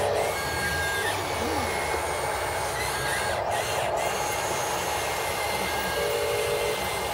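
Electric motors and plastic gearboxes of a Huina RC excavator whirring steadily as it swings and moves its boom, with a thin gear whine that comes and goes as the motors change speed.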